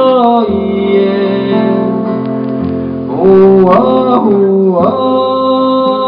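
Male voice singing a slow melody with long held notes that slide between pitches, over acoustic guitar. The singing gets louder about three seconds in.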